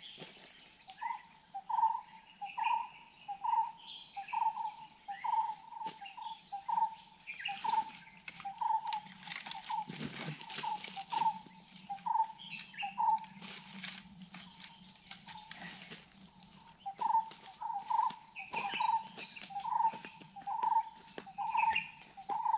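A forest bird repeating a single short note, about one and a half times a second, that pauses midway and then starts again, with fainter chirps of other birds and scattered rustling and cracking of sticks.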